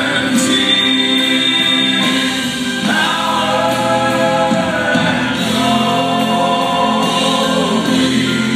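Southern gospel vocal group singing live in close harmony with band accompaniment, holding long chords that shift to new ones every two to three seconds.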